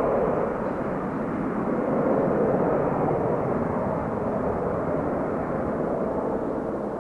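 Twin jet engines of an Airbus A321 airliner at take-off power as it climbs out after lift-off: a steady rushing noise that swells about two seconds in and slowly fades toward the end.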